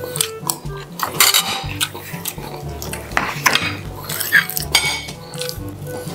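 Metal spoons and forks clinking and scraping irregularly against plates and bowls while people eat.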